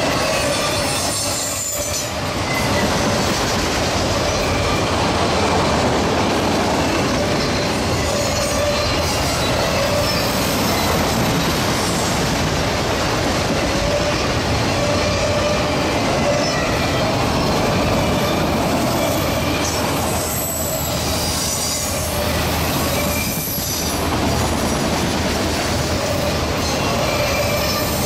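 Freight train cars rolling past, a loud steady rumble of steel wheels on rail with a thin squeal from the wheels running through it.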